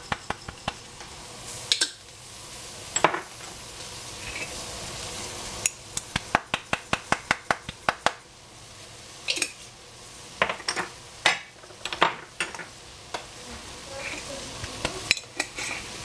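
A utensil striking and scraping a frying pan in quick runs of strokes, several a second, while food is stir-fried, over a steady sizzle.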